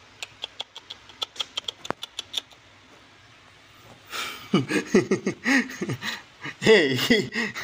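A quick run of light clicks and taps, then cats mewing repeatedly from about halfway, each call falling in pitch.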